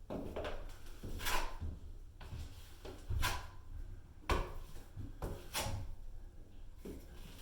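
Drywall knife scraping thick, unthinned old joint compound across a wall, about five drawn strokes in a few seconds, each a short rasping sweep.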